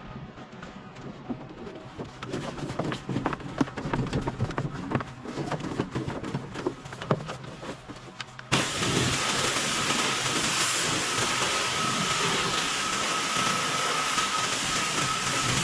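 Pressure-washing equipment at work. Irregular knocking and rumbling give way abruptly, about halfway through, to a steady hiss of spraying water with a steady high whine underneath.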